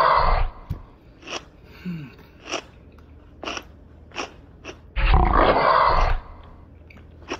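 Someone eating from a plastic bowl: a few sharp clicks of utensil and mouth while chewing. Twice, at the start and about five seconds in, a loud rough noise about a second long breaks in.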